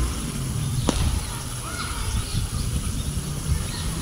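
Outdoor ambience with no single main sound: a low, uneven rumble throughout, a few faint bird chirps, and one sharp click about a second in.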